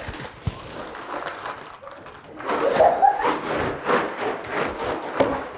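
Several people whooping and shouting together, loudest from about two and a half seconds in, after a quieter start with a low thud.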